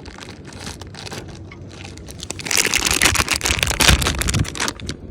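Plastic packaging crinkling while being handled, faint at first and then loud, dense crackling from about two and a half seconds in until near the end: a soft-plastic bait bag being opened and rummaged for a new worm.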